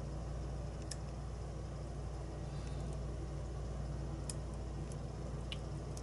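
A few faint metallic ticks of a steel hook pick working the pins inside a brass pin-tumbler lock cylinder, over a steady low hum.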